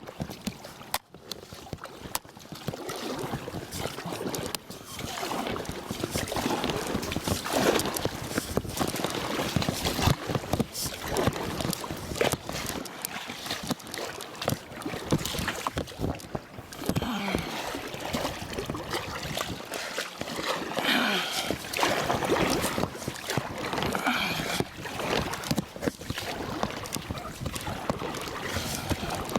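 Oars dipping and splashing as a small rowing boat is rowed, with water gurgling around the hull in irregular strokes.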